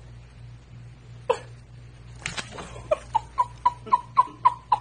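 Screech owl calling: one sharp note just over a second in, then a run of short, even toots at a single pitch, about four a second.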